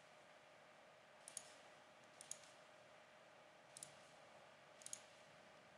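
Four faint computer mouse clicks, each a quick double tick of button press and release, spaced roughly a second apart, over a faint steady hum.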